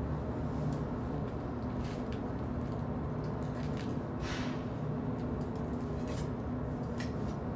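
Faint scraping and squishing of wet mortar as a glass block is pressed and packed into place by hand, a few short scrapes over a steady low background hum.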